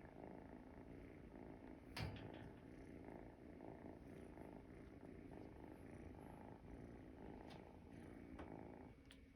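Faint, steady purr-like snoring of a sleeping munchkin kitten, with one short click about two seconds in.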